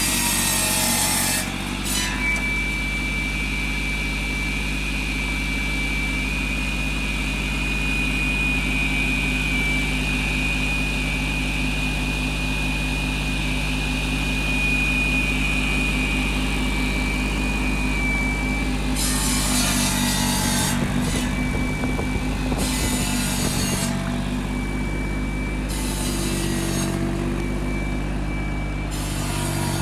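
Small Ford diesel tractor engine running steadily under a constant load, with a thin high whine over it. Short bursts of rushing noise break in at the start and several times in the last third.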